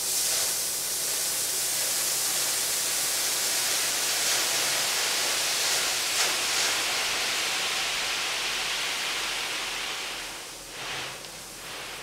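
A load of gravel pouring and sliding off the raised bed of a dump truck in a steady hissing rush. The rush eases off near the end, with a couple of brief surges.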